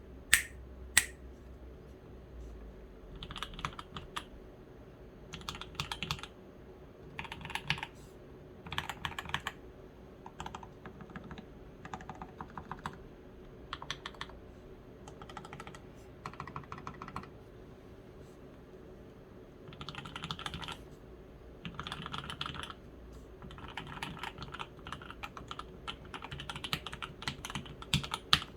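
Typing on an Evelyn ergonomic custom mechanical keyboard with lubed H1 switches and Olivia Dark keycaps: short runs of rapid keystrokes with brief pauses between them. Two louder sharp clicks come right at the start.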